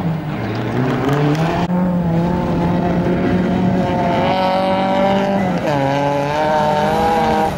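Rally car engine revving hard at high rpm, its pitch climbing and holding high, dipping sharply once about two-thirds of the way through, then climbing again.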